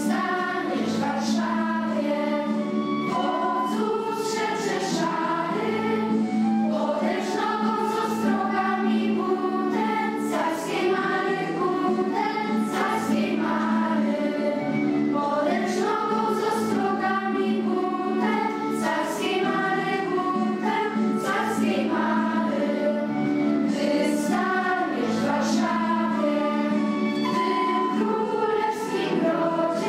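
Children's school choir singing a song together, with a steady low accompaniment held underneath the voices.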